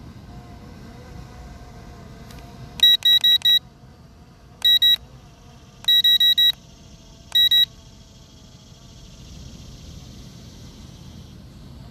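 High-pitched electronic warning beeps from the drone's control system, in quick groups of four, two, four and two over about five seconds, over a steady low background rush.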